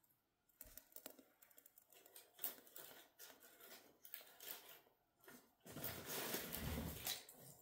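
Faint crackling and small snaps as spruce twigs and kindling catch from a match in a wood stove's firebox, mixed with rustling as the sticks are pushed together. Near the end comes about two seconds of louder rushing noise.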